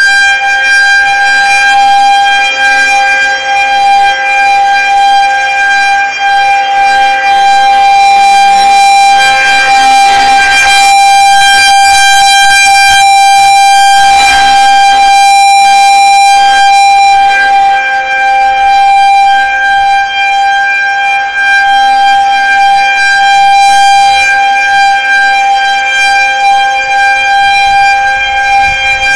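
Federal Signal 2001-130 outdoor warning siren sounding a steady single tone for a tornado warning, very loud. Its loudness swells and eases as the rotating head turns, loudest about midway.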